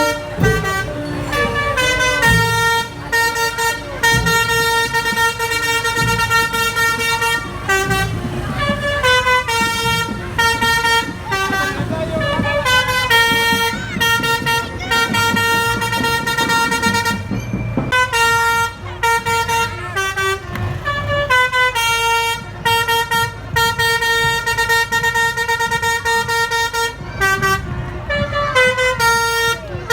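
SJM Trans bus's Basuri telolet horn playing tunes: a run of held musical notes stepping up and down in pitch, with short breaks between phrases, over a low rumble.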